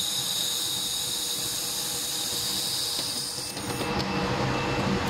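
A 2 kW handheld fiber laser welder welding thin steel plate: a steady hiss with a high whine. About three and a half seconds in, the welding stops and only a lower machine hum goes on.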